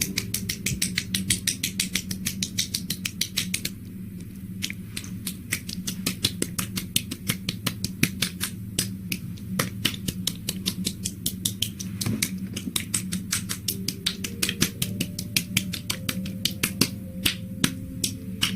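Close-miked ASMR clicking: quick, crisp, wet-sounding sticky clicks at about six a second, with a brief lull about four seconds in.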